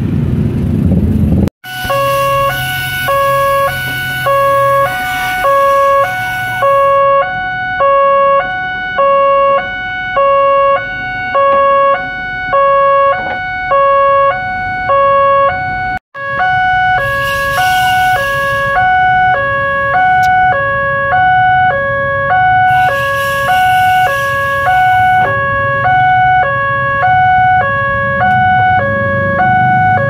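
Railroad level-crossing alarm sounding its electronic two-tone warning, a low and a high tone alternating about every half second while the crossing lights flash. It opens with a second and a half of motorcycle traffic, and stretches of hissing noise come and go over the alarm.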